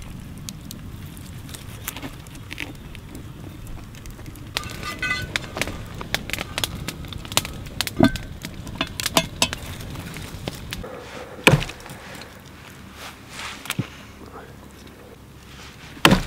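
Scattered clicks and knocks of meat being handled and cut, with two hard thumps. The last and loudest, near the end, is an axe chopping through a strip of smoked meat held on a log.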